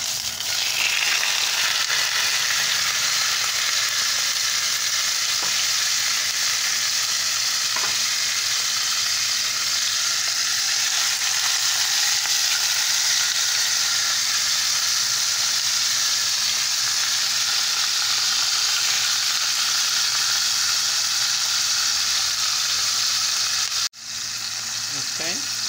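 Seasoned bone-in pork chops sizzling steadily in hot olive oil in a skillet as they brown. The sizzle starts as the chops go into the pan and cuts out for an instant near the end.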